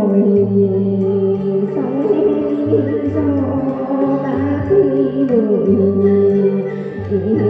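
Instrumental break in a Vietnamese Buddhist devotional song: a lead melody that slides and bends in pitch over a bass line stepping between held notes.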